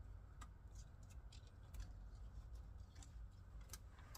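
Near silence with faint, irregular small clicks of hands handling the amplifier power wire and inline fuse holder at a car battery, over a low steady hum.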